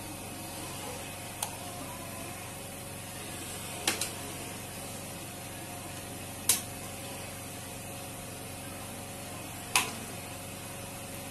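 Sharp taps of eggs being cracked against the rim of a glass mixing bowl: a light tap, a quick double tap, then two louder single cracks a few seconds apart, over a steady background hum.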